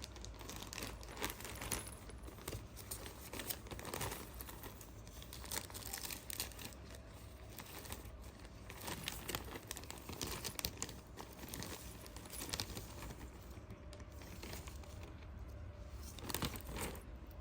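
Faint, irregular crinkling and rustling, with scattered light ticks and a few slightly louder crackles.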